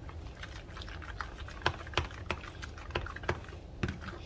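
Fork clicking and scraping against the side of a bowl while stirring pumpkin purée with evaporated milk: irregular light taps, a few each second.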